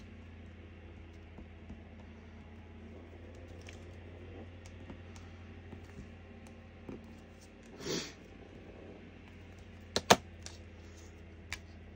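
Small scattered clicks and taps of craft tools and card being handled on a table, over a low steady hum. A brief rustle comes about eight seconds in, and two sharp knocks a couple of seconds later.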